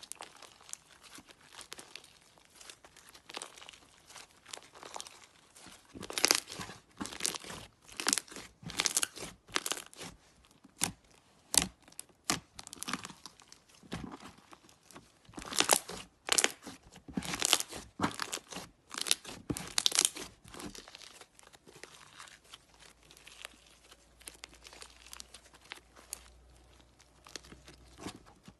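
Crunchy slime being worked, giving quick crackling, crunching pops in clusters. The loudest runs of crackles come about a quarter of the way in and again around the middle, then it turns quieter toward the end.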